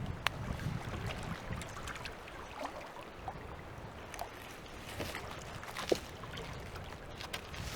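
Lake water sloshing and trickling, with a few sharp knocks, the clearest just after the start and near six seconds in.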